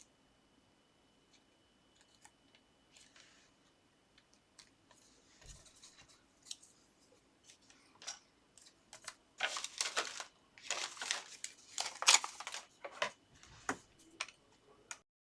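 Paper and card being worked by hand at a craft desk: scattered faint ticks, then from about halfway a busy run of short snipping and rustling sounds from scissors and paper.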